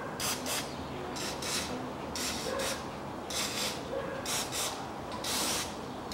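Aerosol spray can hissing in a series of short bursts, the longest near the end, as lubricant is sprayed into the tappet bores of a bare cylinder head.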